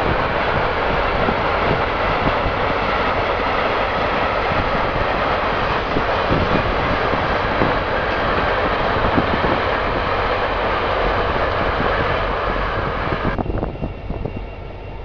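Freight train rolling past, a steady noise of wheels on the rails, cut off abruptly near the end.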